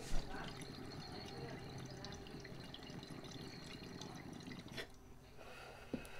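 Water bubbling and gurgling through a glass dual recycler dab rig during a steady inhale. The bubbling stops a little before five seconds in, when the draw ends.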